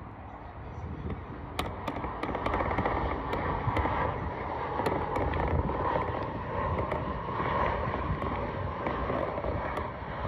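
Airbus A320 jet airliner passing low overhead: a loud rushing jet roar that swells a second or two in and eases near the end, with a crackle of sharp ticks running through it.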